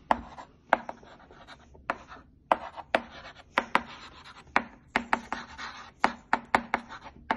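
A thin wooden stick tapping and scratching on a hard tabletop: a string of sharp, irregular taps, roughly two a second, with scraping in between.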